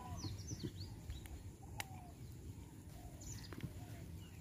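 Faint bird calls: quick high chirps in two short clusters, near the start and a little past three seconds in, and a few lower arched call notes between them. A single sharp click comes near two seconds in, over a low steady background rumble.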